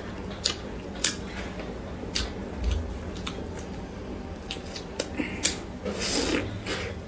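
Crisp crackling of a pan-fried pumpkin-filled bun's crust as it is handled and pulled at by hand, in scattered sharp crackles. About six seconds in comes a crunchy bite into the bun, then chewing.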